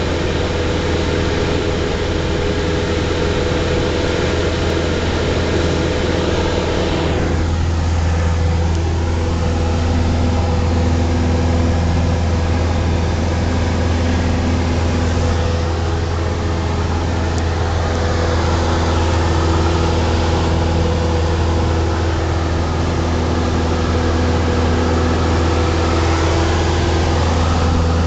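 Piston engine and propeller of a single-engine light plane in flight, heard inside the cabin as a loud, steady drone. The tone shifts about seven seconds in.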